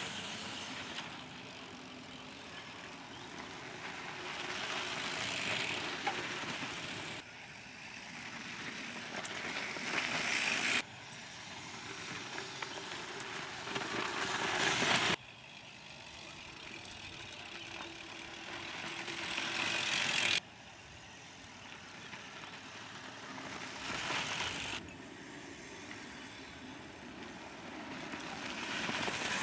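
Mountain bikes passing one at a time through a loose dirt turn: tyre noise on dirt swelling as each rider comes through, then breaking off abruptly, several times over. A few sharp knocks about four to five seconds in.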